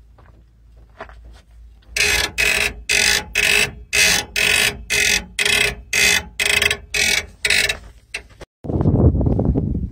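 Rear leaf springs of a 2010 Ford F-150 squeaking in an even rhythm, about two squeaks a second, as the truck moves on its suspension: dry spring leaves rubbing on each other. The squeaks start about two seconds in and stop near the end, followed by wind rumble on the microphone.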